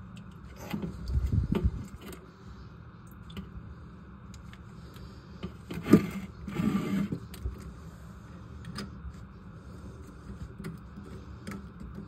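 Handling noise from a toilet water supply line being worked at the tank's brass fill-valve shank: a low rumbling rustle about a second in, a sharp knock about six seconds in followed by a second of scraping, over a steady low hum.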